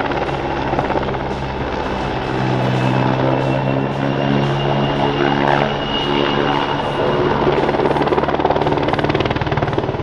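PZL W-3 Sokol twin-turbine helicopter in display flight, its rotor beating rapidly over a steady engine hum, with a faint high turbine whine in the middle.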